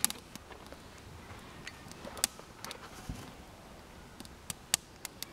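Wood campfire burning, with scattered sharp crackles and pops at irregular intervals over a faint background hiss.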